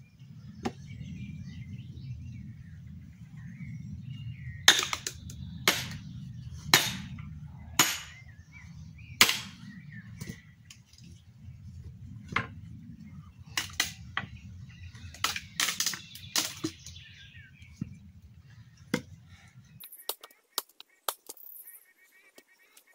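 Sharp hammer blows driving nails into a log to split firewood: about a dozen irregular strikes, the loudest in the first half. A steady low rumble runs beneath them and stops near the end.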